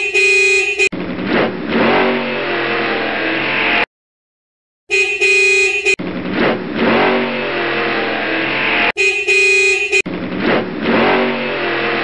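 Dubbed sound effects: a car horn honking for about a second, then a car engine running for about three seconds. The pair repeats three times, with a second of silence after the first.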